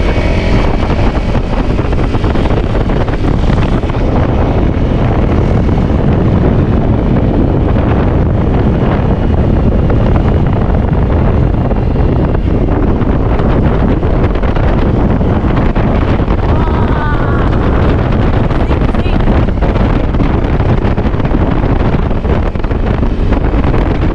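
Dirt bike running along a rough, slippery trail, heard under loud, steady wind noise buffeting the microphone.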